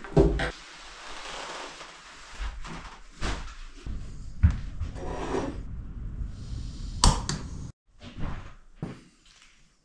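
Knocks and thuds of gear being handled and set down on wooden surfaces in a small wooden room, with stretches of rustling or hissing in between.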